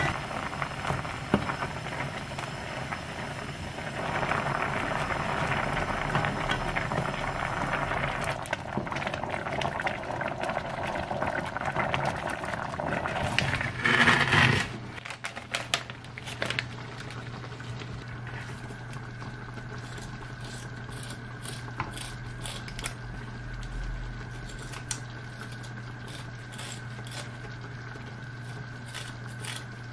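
Vegetable curry bubbling at the boil in a pot as a wooden spoon stirs it. About halfway through comes a loud, brief rustle as a knife slits the plastic package of a semi-dried flounder. Then kitchen scissors snip off the flounder's fins in a series of sharp clicks, over a steady low hum.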